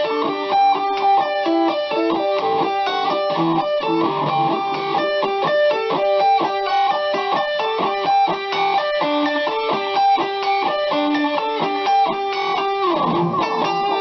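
BC Rich Mockingbird electric guitar through a distorted amp, both pickups selected with the tone rolled all the way off for a smoother, Les Paul-like sound, playing a fast single-note lead line. Near the end the pitch dips down and comes back up.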